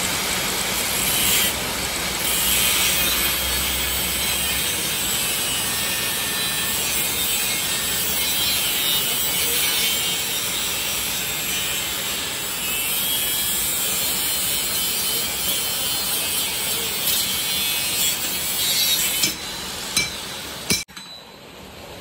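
A power tool cutting or grinding steadily with a harsh rasping noise, cutting off abruptly near the end.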